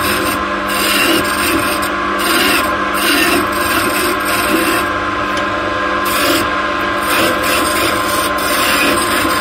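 Wood lathe turning a linden (lime wood) blank while a hand-held turning chisel cuts into the spinning wood in repeated short passes: a rasping hiss that comes and goes over a steady hum.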